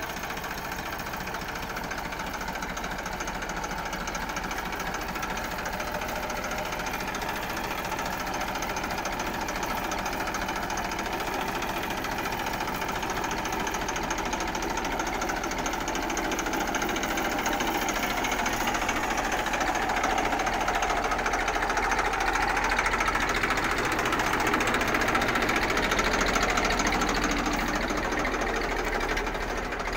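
Massey Ferguson 1035 DI tractor's three-cylinder diesel engine running with a fast, even clatter. It grows louder through the second half and eases off near the end.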